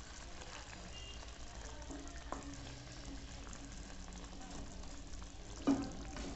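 Fish and potato curry simmering and bubbling in a pan while a wooden spatula stirs it, with a sharp knock of the spatula against the pan near the end.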